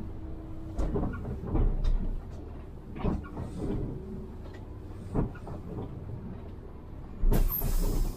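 Cabin sound of an Iveco Urbanway 12 diesel city bus under way: a steady low engine and road rumble with frequent short rattles and knocks from the body and fittings. A loud burst of hiss comes near the end.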